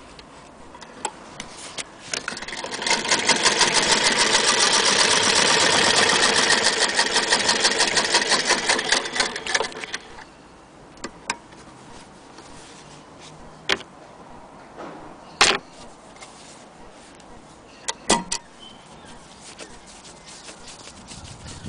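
Hand-cranked Singer Model 28K vibrating-shuttle sewing machine stitching, a fast, even clatter that builds up over a second or two and winds down about ten seconds in. After it come a few separate clicks and knocks.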